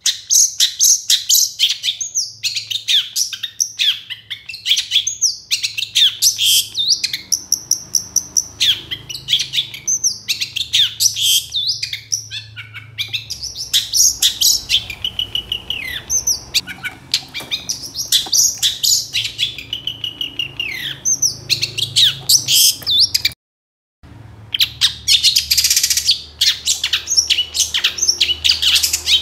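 Long-tailed shrike (cendet) singing continuously: a fast, varied run of sharp chirps, whistled glides and trills, with a stretch of harsh, buzzy chatter near the end. The song breaks off for about half a second after the two-thirds mark.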